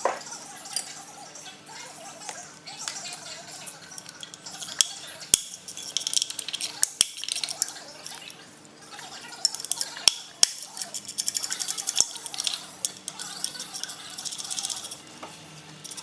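Metal hand tools clinking and knocking against engine parts during a diesel V6 teardown, with scattered sharp clicks and a run of rapid clicks around the middle, over a faint steady hum.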